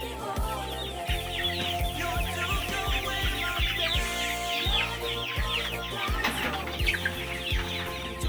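A flock of young chickens peeping constantly in many short, falling chirps, over background music with a steady beat.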